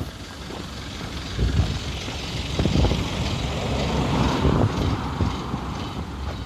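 Road traffic passing: a steady rush of tyres and engine noise that swells through the middle and eases off, over an irregular low rumble of wind on the microphone.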